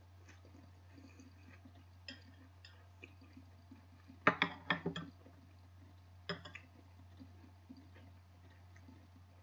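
Tableware clinking during a meal: a quick run of four or five sharp clinks about four seconds in and a shorter run a couple of seconds later, with a few lighter taps before them. A steady low hum runs underneath.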